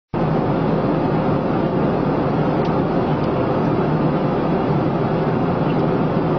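Jet airliner cabin noise at cruise: a steady rumble of engines and airflow heard from inside the cabin by the window. It starts abruptly and stays even throughout.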